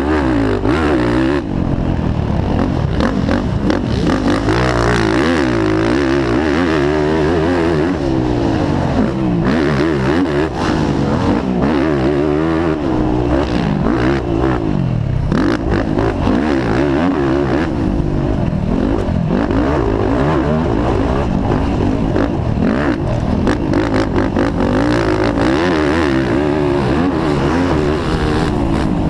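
Racing quad (ATV) engine heard close from onboard, revving up and falling back again and again as it accelerates out of turns and shifts through the gears, with frequent knocks and rattles from the machine over the rough dirt track.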